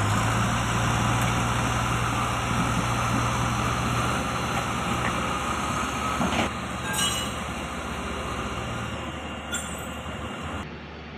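A steady engine drone under a broad rushing noise, with a few sharp knocks a little past the middle; the drone weakens in the second half.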